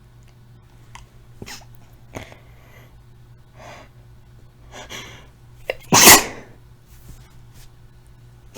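A woman's induced sneeze: a few short breaths and sniffs, then one loud, harsh sneeze about six seconds in, crackly enough to sound like breaking glass.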